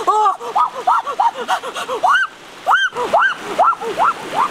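A man's rapid, high-pitched wordless yelps, each note rising and falling in pitch, about five or six a second, with a brief pause about two seconds in.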